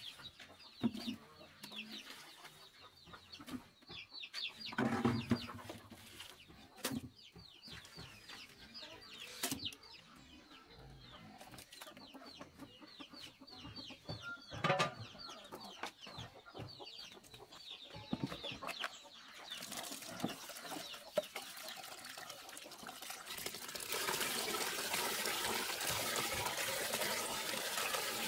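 Chickens clucking and cheeping in many short high chirps, with occasional knocks of a plastic scoop in a metal pot. About 24 seconds in, a tap starts running into a plastic bucket, splashing as hands knead soaked mash in the water.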